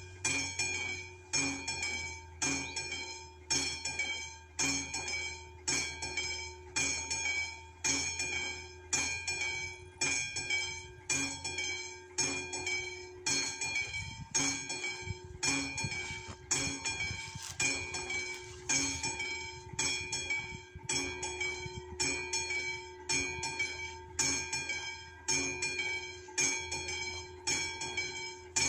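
Level-crossing warning bell, the classic electromechanical bell of VÚD crossing signals, ringing in steady single strokes about one and a half a second, each stroke ringing on. It signals that the crossing is active and a train is approaching.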